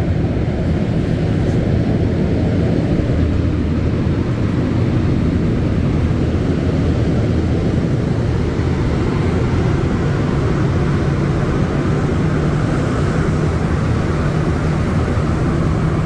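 Rubber-tyred Montréal Métro train running through a tunnel, heard from inside the car: a loud, steady rumble with a hum underneath and a higher hiss that grows stronger in the second half.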